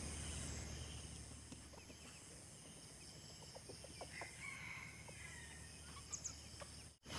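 Free-ranging domestic chickens, a rooster and a hen, clucking faintly, with a short call about four seconds in.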